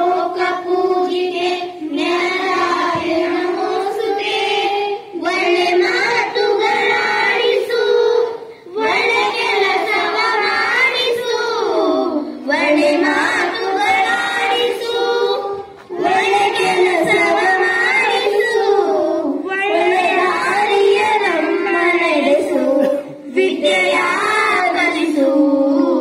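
Children singing a prayer song together, line by line, in sung phrases of three to four seconds with short breaks between them.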